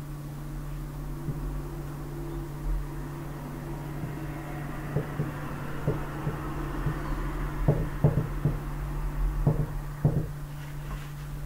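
Marker writing and tapping on a whiteboard: a scattering of short, light knocks from about five seconds in, over a steady low hum.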